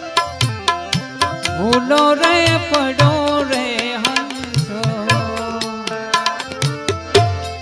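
Instrumental interlude of a Gujarati bhajan: tabla playing a quick, even beat under held notes, with a melody line that slides and wavers in pitch from about two seconds in.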